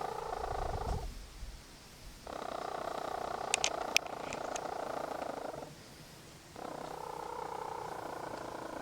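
Hen making long, drawn-out purr-like calls, each lasting a few seconds, with pauses of about a second between them. A few sharp clicks come partway through the middle call.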